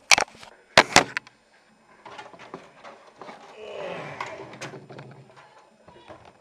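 Handling noise as a computer case is turned around: three sharp knocks in the first second, then a few seconds of rustling and scraping.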